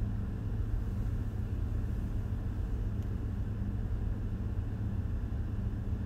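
Steady low rumble of ship engine-room machinery, with a faint steady hum above it.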